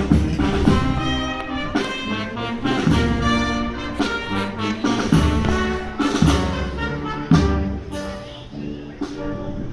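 Brass music, trumpets and trombones, playing sustained notes over heavy low bass notes, easing off somewhat near the end.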